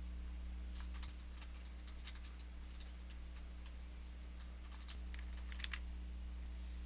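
Scattered light clicks and taps in small clusters, over a steady low hum that drops in level about a second in and comes back about five seconds in.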